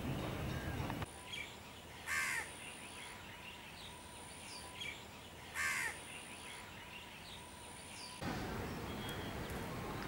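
A crow cawing twice, a few seconds apart, each caw short and harsh, with a few faint chirps from small birds between them.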